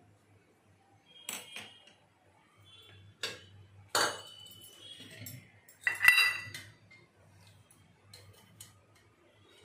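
Empty non-stick kadai set on and shifted about a gas stove's metal burner grate: a few separate clanks and knocks, the loudest about six seconds in with a short metallic ring.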